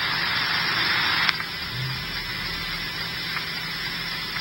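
Police radio static from a low-bitrate scanner stream on a phone: a hiss that cuts off with a click about a second in, at the end of a transmission, leaving a fainter steady hiss.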